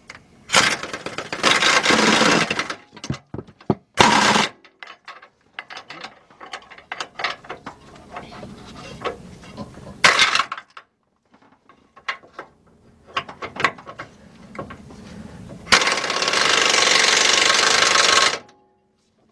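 Impact wrench hammering as it runs the engine's motor mount bolts tight: a run of about two seconds near the start, short bursts about four and ten seconds in, and a steadier run of about two and a half seconds near the end. Small clinks of socket and tool handling fall between the runs.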